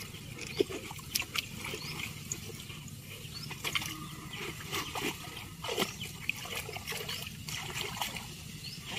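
Water trickling and splashing as a fish-trap net is pulled up by hand out of shallow muddy canal water, with many short scattered splashes and drips.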